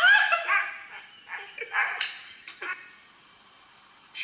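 A dog giving a run of short, high-pitched yelping calls, some sliding upward in pitch, a vocalisation its owner calls the dog laughing; the calls die away after about three seconds.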